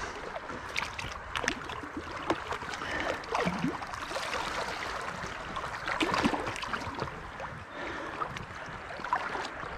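Shallow river water sloshing and splashing as branches are pulled out of a debris jam by hand, with many short splashes and knocks of wet sticks throughout.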